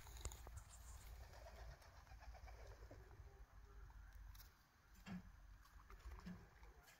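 Quiet garden with a pigeon cooing faintly, and a few soft clicks and knocks around five seconds in as a dog mouths an apple on the grass.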